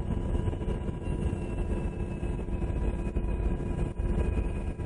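UH-60 Black Hawk helicopter's turbine engines and rotor heard from inside the aircraft: a steady drone with a deep rumble and a few faint, steady whining tones.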